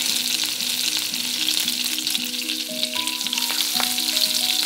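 Curry leaves, mustard seeds and cumin seeds sizzling and crackling in hot oil in a wok, with many small pops: the tempering stage, with the oil hot enough for the seeds to splutter. Soft background music plays underneath, and higher notes join about three seconds in.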